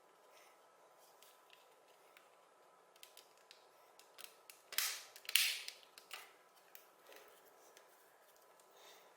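Small clicks and taps from handling keyboard parts, with two louder sharp snapping sounds about half a second apart midway through.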